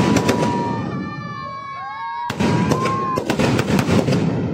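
Fireworks and firecrackers going off in rapid, overlapping bangs and crackles. About a second in the bangs pause and a high whistle with many overtones sounds, then the dense crackling starts again just past halfway.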